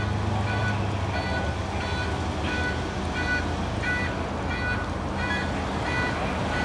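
Rapid electronic beeping, about three short high beeps a second and evenly spaced, over a steady low engine idle.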